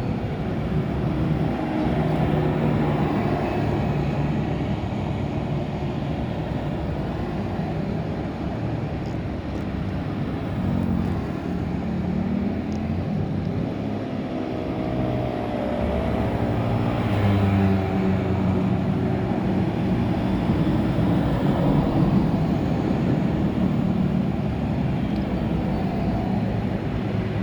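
Loud, steady rumbling rush of water pouring through a cleared culvert.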